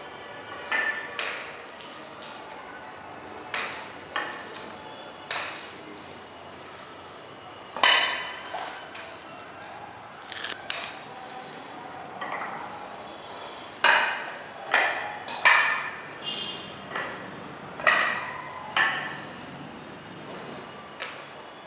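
Metal-spiked shoes stepping across a wet floor coating: irregular sharp clicks as the spikes strike the floor, each with a brief metallic ping, coming faster in the second half.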